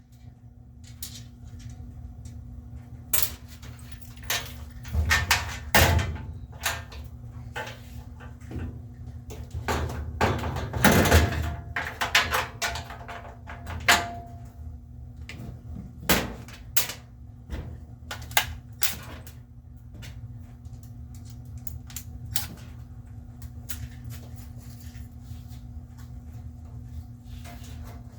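Irregular knocks, clunks and rattles of a top-load washer's metal cabinet and lid being handled and shifted, over a steady low hum.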